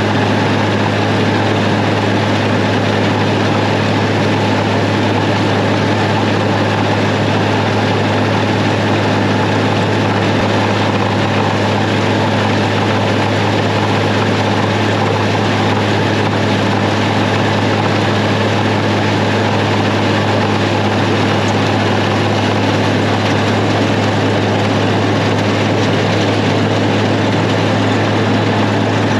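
International Harvester 856 tractor pulling a PTO-driven New Holland 36 forage chopper through alfalfa, the engine and chopper running steadily under load while cutting and blowing crop into the wagon. A constant low hum with an even rushing noise over it.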